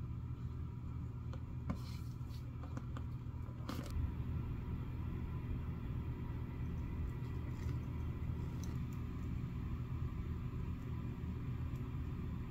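Faint scraping and a few light clicks from a flat metal scraper blade worked along the sticky, melted edge coat of a leather bag handle, over a steady low hum.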